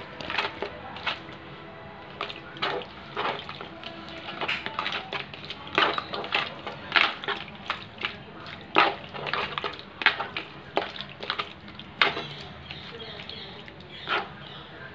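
A hand squishing and mixing raw prawns in Schezwan chutney in a bowl. The sound is irregular wet squelches and short sharp clicks of fingers against the bowl.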